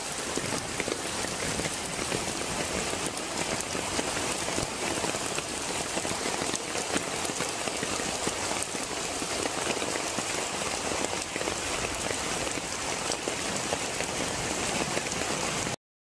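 Heavy rain pouring down in a steady hiss, cutting off suddenly near the end.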